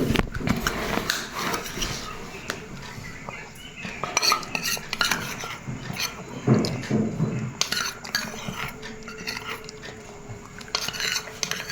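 A spoon clinking and scraping against a dish in irregular taps, as when mixing or scooping.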